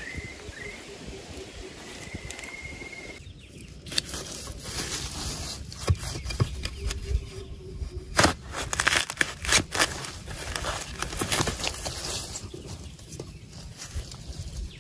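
Rustling and crackling of leaves and brush being pushed through or handled: a run of irregular sharp crunches, busiest in the middle. A steady high tone runs under the first few seconds.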